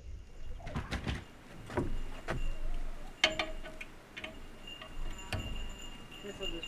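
Metal wrenches and small steel parts clinking and knocking as they are handled and tried on the tooth setter, several separate strikes, some of them ringing briefly like a chime.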